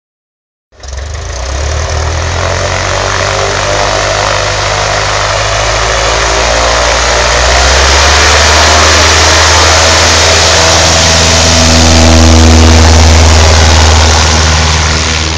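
Cessna 150 ski-plane's 150-horsepower engine and propeller running, a steady pitched drone as it taxis and starts its takeoff run. It grows louder as the plane comes past, loudest about twelve seconds in, then begins to fade as it moves off.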